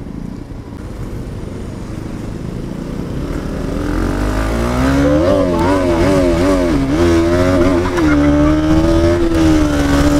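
KTM Duke 200's single-cylinder engine pulling away and accelerating through the gears: quiet at first, then from about four seconds in its pitch rises and dips with each shift before settling into a steady note at cruising speed, with wind noise on the microphone growing.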